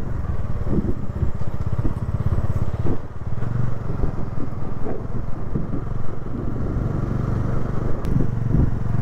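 Bajaj Dominar 250's single-cylinder engine running steadily while the motorcycle is ridden, with a steady rush of road and wind noise.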